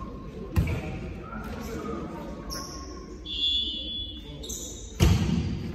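Two smacks of a volleyball being hit or landing, about four and a half seconds apart, the second much louder, each echoing around a large sports hall.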